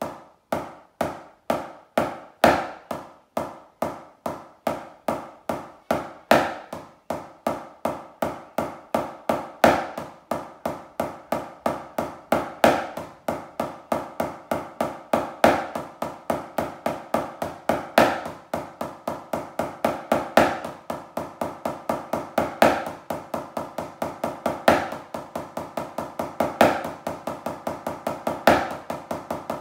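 Wooden drumsticks playing nine-stroke rolls on a rubber practice pad: rapid double strokes, alternating left and right lead. Each roll closes on a louder accented stroke, about every one to two seconds.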